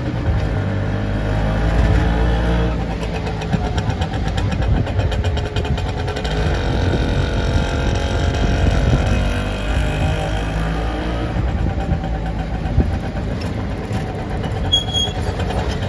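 Auto-rickshaw engine running steadily as the rickshaw drives, heard from inside its open cab with road noise.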